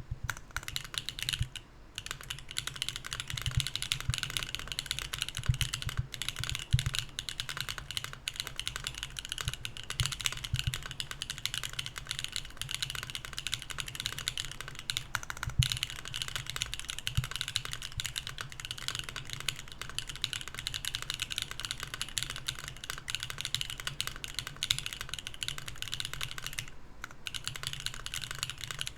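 Steady typing on a Mercury65 mechanical keyboard with BSUN Anya switches, an aluminum plate, no foam and GMK keycaps: a fast run of key clacks with brief pauses, and now and then a louder stroke from a stabilized key.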